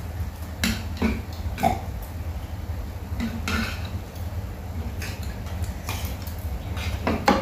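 Sounds of a family meal: chopsticks and spoons tapping and scraping on bowls and plates, and a few short throaty vocal noises, over a steady low hum.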